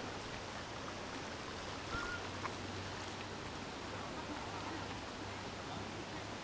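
Shallow, stony river ford flowing steadily, an even rushing hiss of water, with a faint short chirp about two seconds in.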